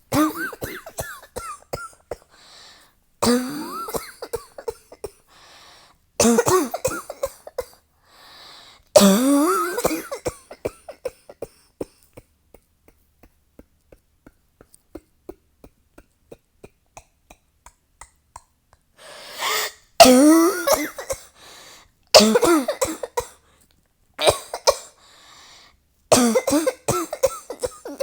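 A person coughing in a nonstop fit: runs of rapid coughs every two to three seconds, a lull of about eight seconds midway, then more runs of coughs.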